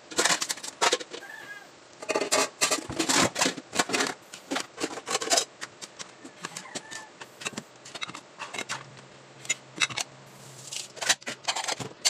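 A metal spoon stirring thick tomato spaghetti sauce with hotdog slices in a stainless pan, making irregular clicks and scrapes against the pan in bursts.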